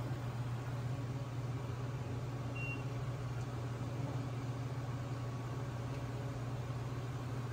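Steady low hum and hiss of running kitchen equipment, with one short high beep about two and a half seconds in.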